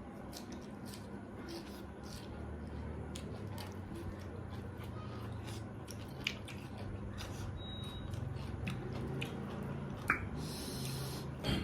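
Close-miked eating: chewing with small wet clicks and squishes of food in the mouth.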